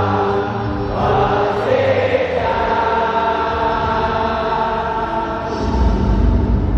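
A large stadium crowd singing together in long held notes, like a choir. About five and a half seconds in, a low rumble joins the singing.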